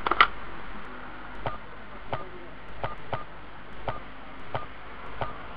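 Handset of a push-button landline telephone lifted off its cradle with a loud click, then seven keys pressed to dial a number, each a sharp click with a short beep, about one every two-thirds of a second.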